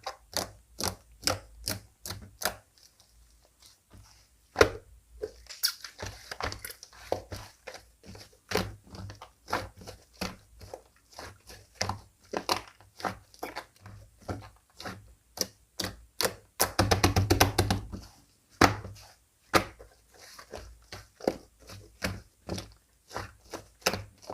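Slime being pressed, poked and folded by hand, giving sharp, irregular clicks and pops. About two-thirds of the way in, a fast run of crackling clicks lasts over a second.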